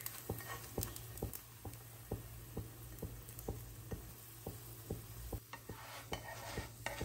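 Oil sizzling gently under a bun parota on a hot flat tawa over a medium-to-low flame, with small irregular crackles and pops, about three or four a second. Near the end a spatula scrapes briefly on the pan.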